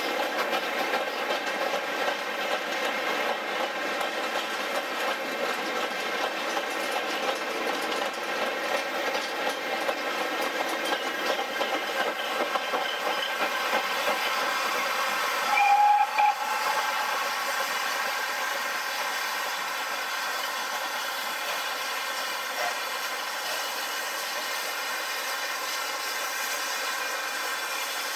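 Steam locomotives and their trains passing on double track, a steady mix of running noise and steam hiss. About halfway through there is a short steam whistle in two quick toots.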